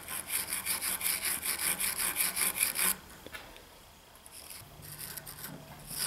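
Hand wire brush scrubbing a copper battery-cable lug terminal in quick back-and-forth strokes, about four a second, scouring off the oxidation left by soldering-torch heat. The scrubbing stops about three seconds in.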